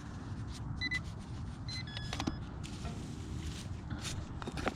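Minelab Equinox metal detector giving short beeps as the coil sweeps: one about a second in, another just before two seconds, then a few brief tones together, over a steady low rumble.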